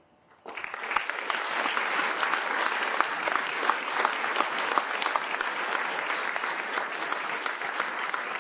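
Audience applauding: many hands clapping together, starting about half a second in and keeping up steadily.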